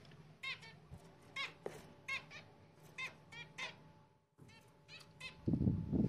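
Small cage birds in an aviary giving short, repeated chirping calls, roughly one every second, some in quick pairs. A brief low rumble of handling noise comes near the end as the phone is moved.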